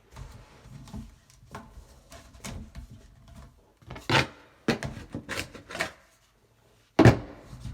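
Plastic sink drain trap parts being handled and fitted together: a run of rubbing, scraping and small knocks, with sharper knocks about four seconds in and near the end.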